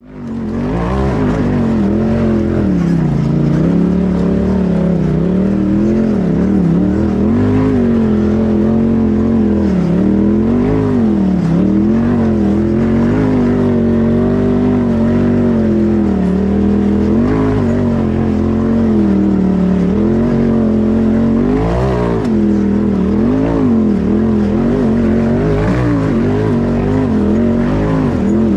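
Turbocharged twin-cylinder engine of a Polaris RZR Turbo S-based tube-chassis buggy, heard from the cockpit while driving a dirt trail, its revs rising and falling again and again as the throttle is worked on and off. The sound fades in at the very start.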